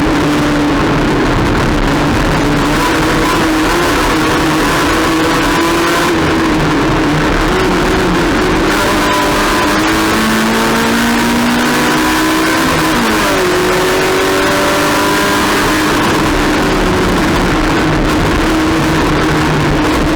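Race car engine running hard, its pitch climbing under acceleration and dropping between shifts and lifts, over a steady rushing noise.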